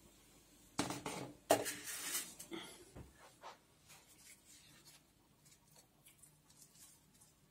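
Handling noise of a round aluminium baking tray of stove-baked potatoes: a burst of knocks and scrapes in the first half, then faint rustling and soft ticks as a baked potato is picked up and broken open by hand.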